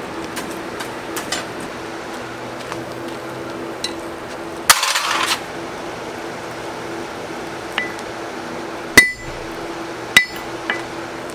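Metal parts being tapped and clinked: a few scattered sharp strikes, the two loudest ringing briefly, and a short hissing burst about five seconds in, over a steady low hum.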